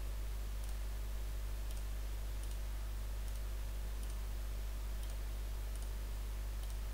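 Low steady electrical hum with faint computer mouse clicks about once a second.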